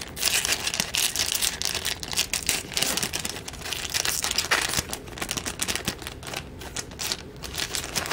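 Plastic trading-card pack wrapper crinkling as it is torn open and handled, with irregular crackles and small clicks, busiest in the first half.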